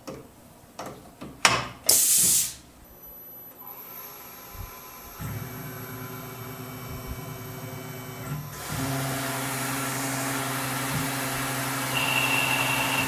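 CNC milling machine: short, loud blasts of air hiss as the drill is released from the spindle, then the spindle running with a steady hum that grows louder about nine seconds in, joined by the hiss of the coolant/air spray, with a high whine near the end as the boring bar runs into the hole in the steel block.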